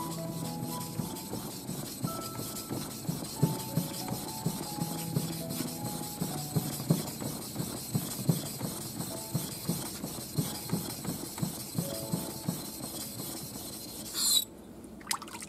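A steel blade being sharpened on a wet whetstone: it rubs back and forth over the stone in steady strokes, about two a second. A brief louder hiss comes near the end.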